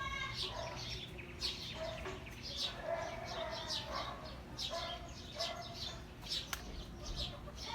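Small birds chirping over and over, with chickens clucking. One sharp click about six and a half seconds in.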